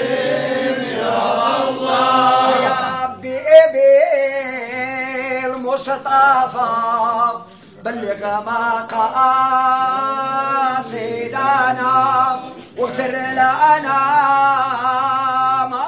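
Men's voices chanting an unaccompanied devotional Arabic song, in long melodic phrases with held notes, broken by short pauses for breath every few seconds.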